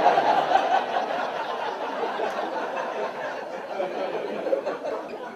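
Audience laughing at a comedy show, loudest at the start and dying down gradually.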